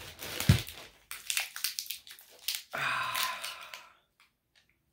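Packaging crinkling and rustling as a small perfume mini bottle is unwrapped by hand, with a sharp knock about half a second in and scattered clicks afterwards, dying away near the end.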